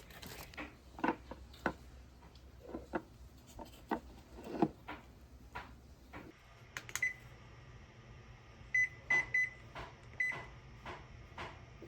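Irregular knocks and clicks of things being handled, then a household appliance's short electronic beeps: one, then three in quick succession, then one more.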